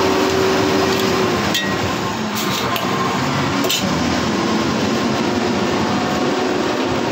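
Pork pieces cooking in a pot, a loud steady hiss, with a few sharp clicks in the first four seconds.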